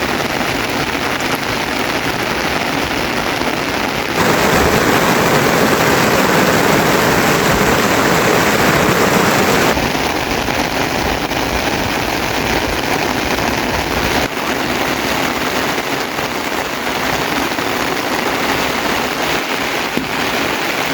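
Rain falling steadily, a dense even patter, growing abruptly louder for a stretch from about four to ten seconds in and changing level suddenly again a few seconds later.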